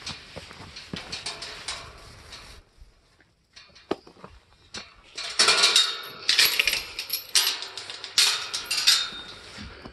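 Metal clattering and rattling as a galvanized wire livestock-panel gate is handled, in a run of loud bursts through the second half after lighter clicking and knocking early on.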